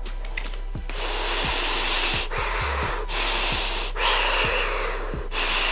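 A man blowing hard through the sole of an Adidas Climacool running shoe to test its air vents: about four long breathy blasts, each around a second, starting about a second in. A steady beat of background music runs underneath.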